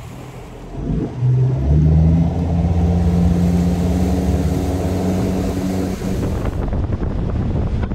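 Boat's outboard motor throttled up about a second in, its pitch climbing, then running steadily at cruising speed with the boat planing.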